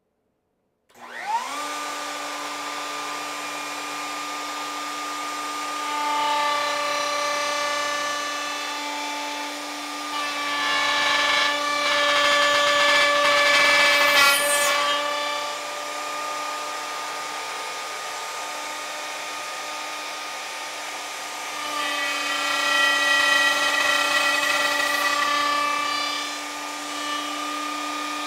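Plunge router with a dovetail bit spinning up about a second in, then running at a steady whine and cutting through a hardwood board in a dovetail jig, louder in three stretches of heavier cutting as it routes the tails.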